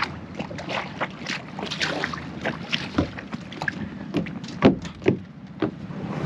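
Irregular knocks, clunks and splashes from a small boat as the stern anchor and its lines are worked, several sharp knocks a second, unevenly spaced.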